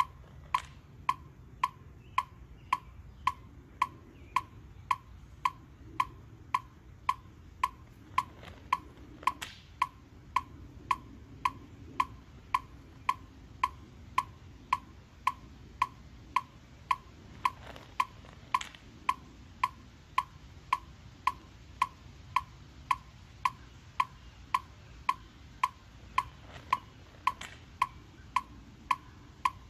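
Metronome clicking at a steady beat, about two clicks a second, each click a short sharp pitched tick.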